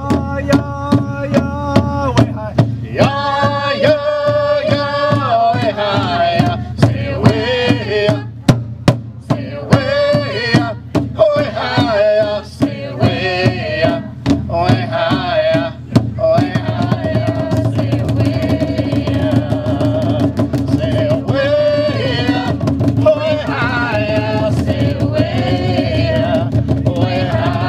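Native American intertribal drum song: a large gathering drum struck in a steady beat by several drummers, under a group of men's and women's voices singing together.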